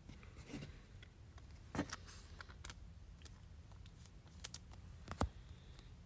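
A few faint, scattered clicks and taps over a low steady room hum, the sharpest about five seconds in.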